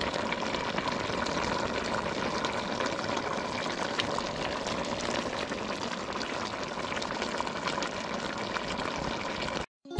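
Pinakbet vegetable stew simmering in a pan: a steady bubbling hiss crackling with tiny pops. It cuts off abruptly just before the end.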